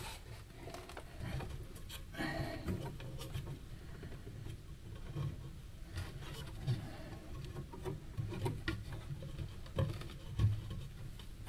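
Faint scattered clicks, taps and rubbing as hands work a light's cable and clips along a timber shelf frame, with a few soft knocks against the wood.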